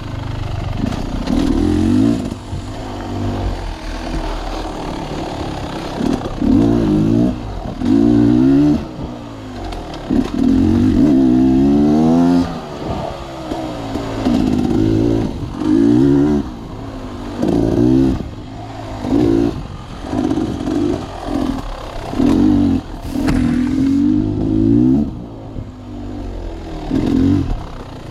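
Sawmill machinery running, its motor note swelling into loud passes every second or two and easing between them, with clatter underneath.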